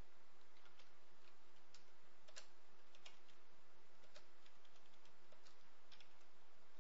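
Computer keyboard keystrokes: a dozen or so separate key clicks at an irregular pace as digits are typed, over a faint steady hiss and hum.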